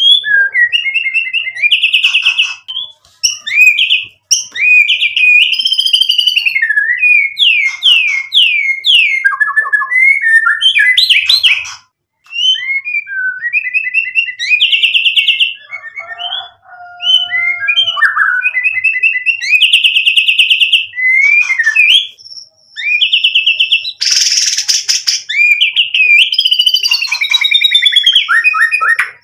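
Male white-rumped shama (murai batu) singing a loud, long, varied song, running through its repertoire of whistled phrases and fast trills, with a harsh buzzy note about 24 seconds in.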